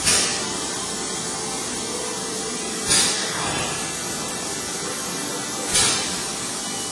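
Fanuc Robodrill CNC milling machine drilling crankshaft oil holes: a steady spray-like hiss, with a louder surge of hiss three times, about every three seconds.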